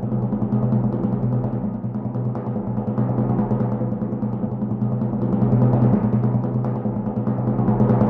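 Timpani roll: rapid, even strokes on a kettledrum holding one low pitch, sustained throughout and slowly growing louder.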